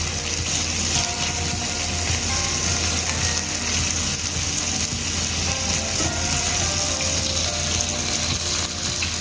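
Chicken strips frying in hot oil in a pan, a steady sizzle, with quiet background music playing.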